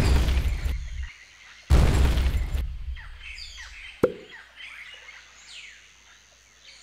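Two deep booming thuds about 1.7 seconds apart, each dying away over about a second. Then birds chirp softly over a faint night background, with a sharp click about four seconds in.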